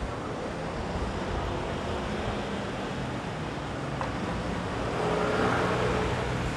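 City street traffic: a steady noise of vehicles with a low engine hum. A vehicle passes closer and louder about five seconds in.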